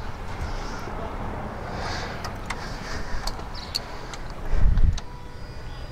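Steady low rumble of street noise and wind on the microphone, with a few light clicks and a short low thump about three-quarters of the way through.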